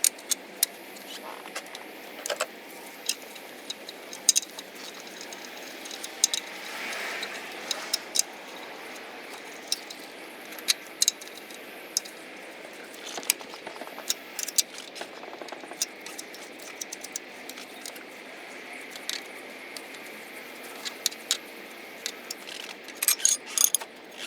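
Hand tools working on a BMW M50 engine: irregular sharp metallic clicks and clinks, a few at a time, over a steady low hiss, with a quick cluster of clicks near the end.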